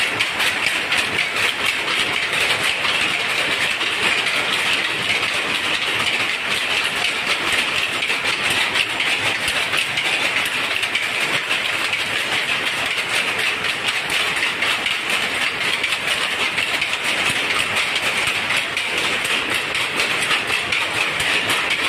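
Several power looms with jacquard heads running at once: a dense, steady mechanical clatter of rapid, close-packed ticks.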